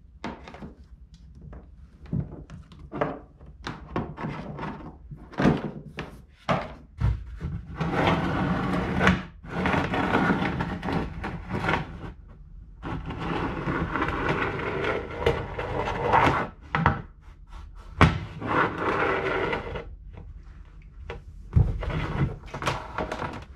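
Knocking and scraping against the inside of a plastic kayak hull as a magnet is dragged along it to pull a weighted wire through. Scattered sharp knocks and clicks, with longer stretches of scraping in the middle and a sharp knock and a thump toward the end.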